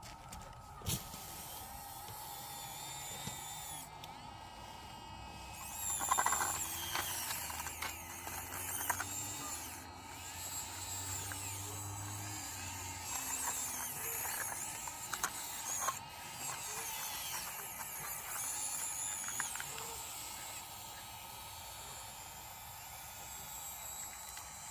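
Small electric motors and gears of a radio-controlled Bruder CAT toy excavator whining as it digs in gravel, with the pitch rising and falling, and scattered clicks and scrapes of gravel.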